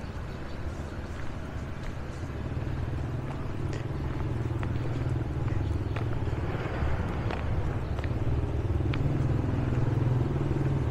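A motorbike engine running steadily, a low hum that grows gradually louder.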